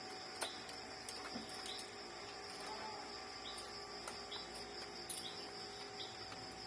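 Crickets or other insects chirping in a steady high-pitched background drone, with a few light clicks and taps, the loudest about half a second in and another about five seconds in.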